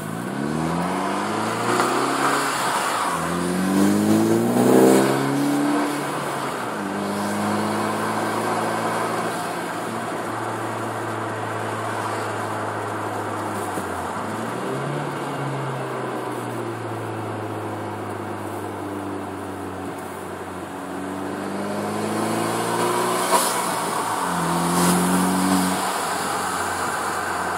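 2013 Hyundai Veloster Turbo's turbocharged four-cylinder through a custom Magnaflow 12886 exhaust, heard through the open driver's window. The engine note rises in pitch twice in the first five seconds as the car accelerates, then holds a steady cruising note, and rises again near the end.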